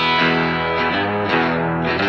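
Background rock music: an electric guitar riff playing between vocal lines, with no singing.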